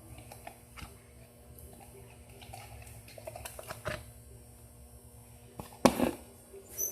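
Scattered small clicks and taps of things being handled, with one louder knock near the end.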